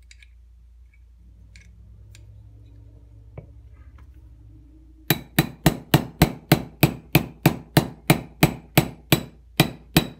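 Small brass-and-nylon hammer tapping a roll pin into a Sig Sauer P226 slide: a fast, even run of sharp taps, about four a second, starting about halfway through.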